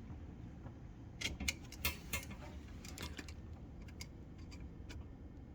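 Hand tools and fittings being handled while disconnecting under-sink plumbing: a quick run of sharp clicks and light taps starting about a second in, thinning out to a few scattered clicks.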